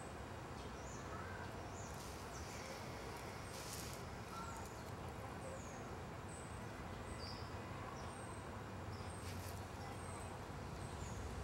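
Woodland ambience: a steady outdoor rush with small birds chirping, short high chirps that dip in pitch every second or so. A few short noise bursts come through about two, three and a half, and nine seconds in.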